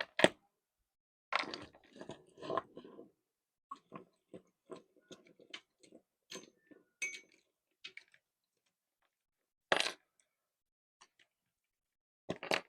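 Handling and cleaning a big-bait fishing lure: scattered small clicks and taps, with a few short scrubbing or rustling noises, the loudest about ten seconds in.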